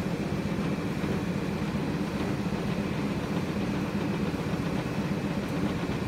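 Maytag MDE5605AES condenser tumble dryer running empty, its motor turning the drum with a steady low hum.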